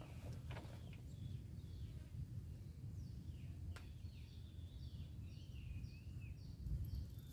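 A small bird calling a series of short falling chirps, about two a second, ending in a brief warble, over a steady low outdoor rumble. A single sharp tick sounds midway.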